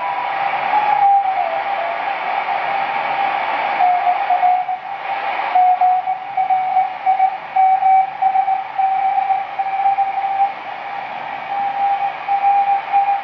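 Eddystone EC10 Mk II transistor communications receiver tuned across the CW end of the 80-metre band: a hiss of band noise with a beat-note whistle that slides lower in pitch as the dial turns. About five seconds in, a Morse code signal settles in as a steady-pitched tone keying on and off.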